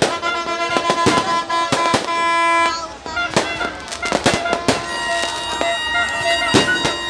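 Fireworks going off: repeated sharp bangs throughout, with crowd voices and a steady horn-like tone a couple of seconds in.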